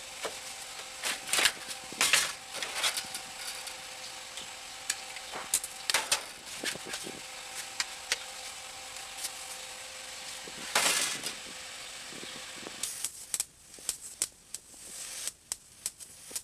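Welder tack-welding a sheet-metal patch into a truck dash: several short bursts of arc crackle and sizzle, with scattered sharp pops between them. A steady hum runs under them and stops about 13 seconds in, leaving only sparse crackles.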